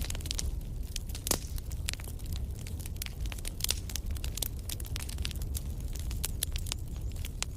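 Wood campfire crackling, with irregular sharp pops and one louder snap about a second in, over a steady low rumble.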